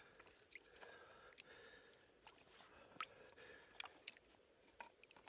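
Near silence: a few faint, scattered clicks and light taps over a low background hiss.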